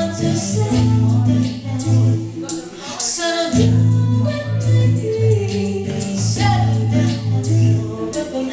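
A live band playing a song with singing, over a strong, steady bass.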